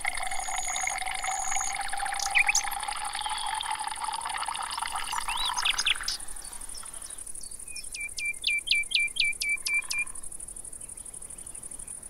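Water pouring into a glass, its pitch rising steadily as the glass fills, with splashes, for about six seconds. After a lull, a bird gives a quick run of about nine chirps.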